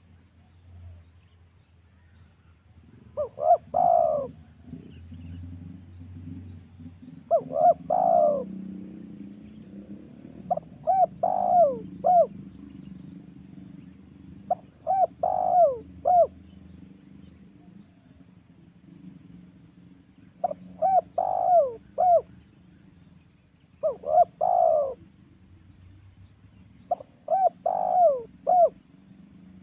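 Spotted dove (tekukur) cooing: about seven phrases of three or four short coos each, a few seconds apart, starting about three seconds in. It is a lure call for drawing in wild doves.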